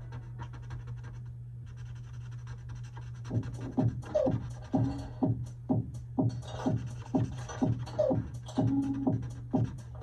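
Background hip-hop music: a low steady drone for about three seconds, then a beat kicks in with punchy drum hits that drop in pitch, about two to three a second.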